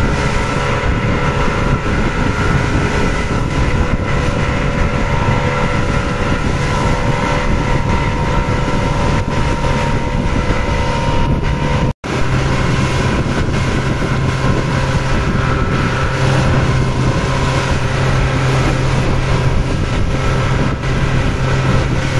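A small boat's engine running steadily under way, a low hum with wind noise on the microphone. The sound cuts out for an instant about halfway, and the engine hum is stronger after it.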